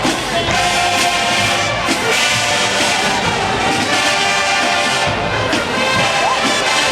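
College marching band playing, its brass section (trombones and trumpets) carrying sustained, full chords at a steady loud level.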